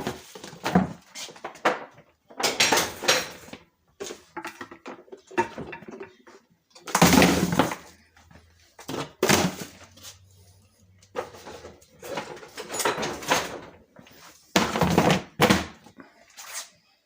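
Handling noises: a string of irregular knocks, thuds and clatters, as objects are moved about and set down, with several louder bangs.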